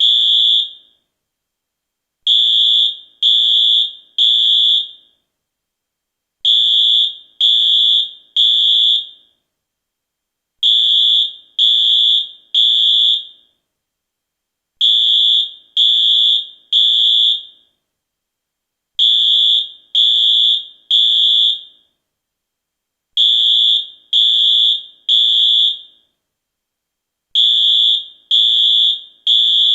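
US fire alarm sounding the temporal-three evacuation pattern: three loud, high-pitched beeps about a second apart, then a short pause, repeating every four seconds or so.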